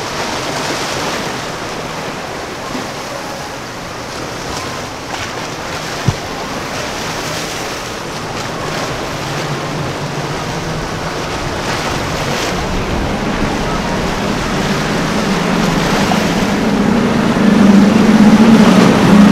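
Choppy inlet water and wind buffeting the microphone, with a passing powerboat's engines droning louder over the last few seconds as it runs close by at speed. A single sharp click about six seconds in.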